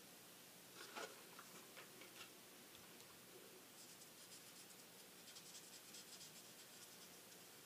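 Faint scratching of a pen drawing on card stock, coming in short strokes from about four seconds in, after a few soft taps of the card being handled.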